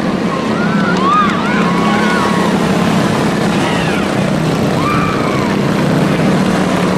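Several small quarter midget race car engines droning steadily as the cars lap the track. A few brief rising-and-falling higher sounds ride above them, about a second in and again near five seconds.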